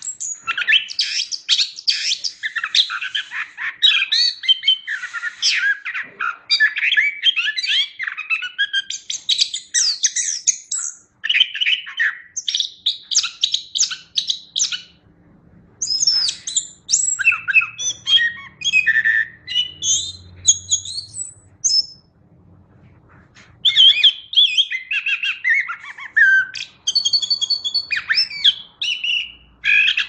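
Chestnut-capped thrush (anis kembang) in full song: a fast, varied run of chirps, trills and whistles, with a short pause about three-quarters of the way through.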